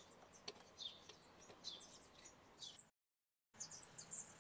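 Faint bird chirping in the background, with a few light clicks. The sound drops out completely for about half a second after the middle.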